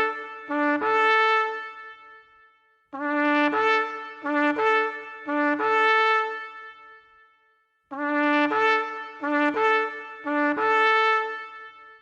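Shofar (ram's horn) blown in phrases of short blasts that alternate between a low note and a higher note. Each phrase ends on a held higher note that fades away with a long echo. New phrases start about three seconds in and again about eight seconds in.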